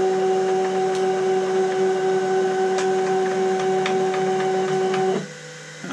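Home-built CNC router running with a steady, even whine of several tones as its head travels. It cuts off abruptly about five seconds in as the job finishes.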